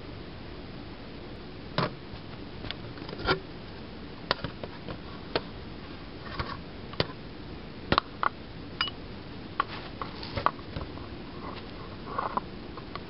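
Handling noise from a handheld camera: irregular small clicks and taps over a steady hiss. No engine is running.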